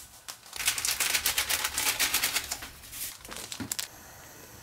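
Foil sachet of tamarind soup-base powder crinkling as it is shaken out over a pot, a rapid patter of small crackles for about three seconds. A few separate clicks follow, then a steady faint hiss.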